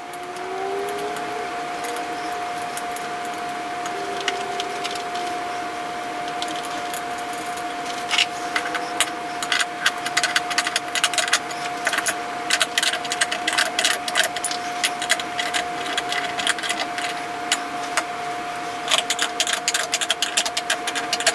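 Ratchet wrench clicking in quick runs as the 10 mm nylon-insert lock nuts on a ceiling fan's mounting bracket are tightened, mostly from about eight seconds in and again near the end, over a steady high hum.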